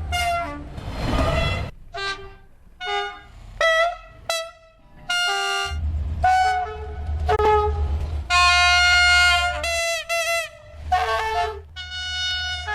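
Train horns from different locomotives and railcars, a dozen or so short blasts and chords cut one straight after another, several over the low rumble of a locomotive engine. A run of short toots about ten seconds in sags in pitch.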